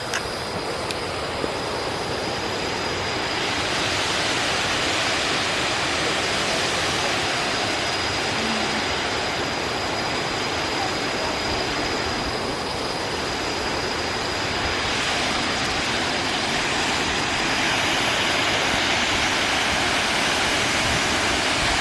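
Steady rushing of a waterfall, an even hiss of falling water with no break, and a faint thin high whine held throughout.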